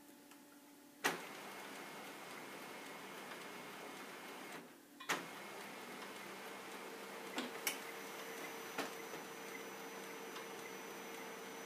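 Dell laser printer starting a print job on a sheet of fabric: a sharp click about a second in, then its mechanism running steadily, with a brief dip and another click about five seconds in and a few light ticks after.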